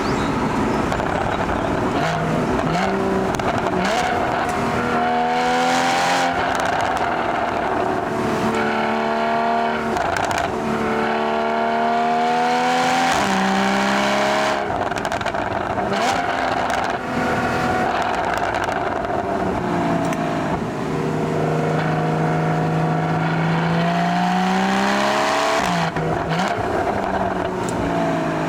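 Porsche Boxster GTS (981) 3.4-litre flat-six accelerating through the gears: revs climb in several pulls and drop sharply at each upshift, with a long climb in the last third.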